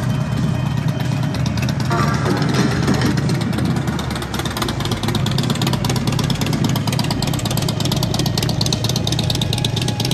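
Cruiser motorcycle engine running steadily at low speed, just above idle.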